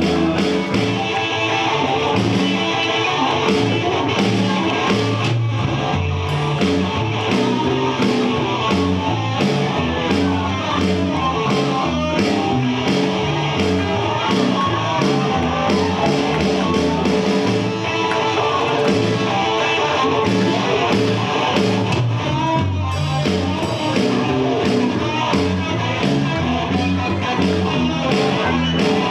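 Live band playing upbeat rock and roll with guitar over a steady beat.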